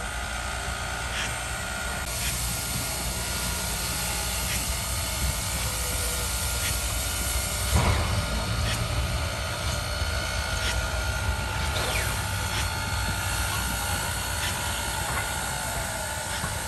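Steam locomotive at low speed or standing, with a steady hiss of steam and scattered clanks and clicks from the engine. A louder single knock comes about eight seconds in.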